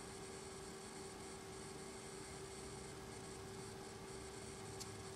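Steady electrical hum on one tone over faint hiss, with a couple of faint small clicks near the end.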